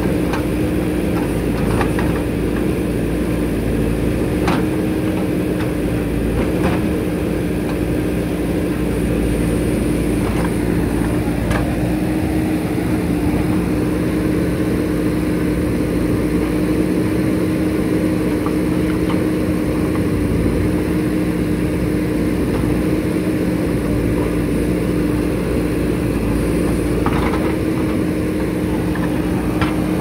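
JCB 3DX backhoe loader's diesel engine running at a steady speed with a constant hum as the backhoe arm digs, with a few short sharp knocks scattered through it.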